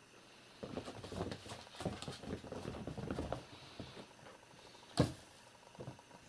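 Kittens scampering and scrabbling on a carpet and a pair of felt boots: a few seconds of quick patter and scratching of paws and claws, then one sharp knock about five seconds in.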